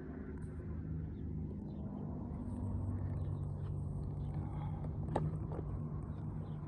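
Steady low drone of a running engine, slowly growing louder, with a brief sharp sound about five seconds in.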